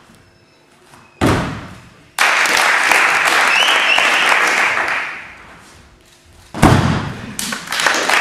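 A body landing twice on a thick gym crash mat with a heavy thud, about a second in and again near the end. The audience bursts into applause and cheering after each landing.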